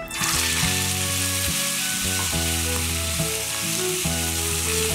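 Pork ribs frying in hot oil: a loud sizzle bursts up as a rib is lowered into the pan and then goes on as a steady hiss.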